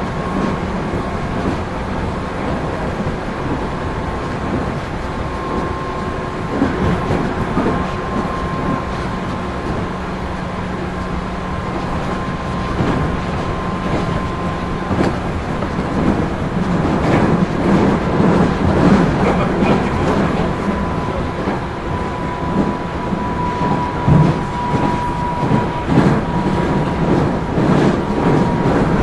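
Inside a JR 213 series electric train car (KuMoHa 213-3, a motored car) under way: steady running noise with a thin whine. Wheels click over rail joints, busier and louder in the second half.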